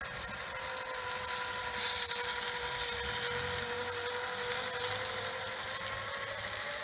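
Rotisserie spit motor whining steadily as it turns a turkey over a gas grill, over the hiss and sizzle of the fire and dripping fat. The whine rises slightly in pitch near the end.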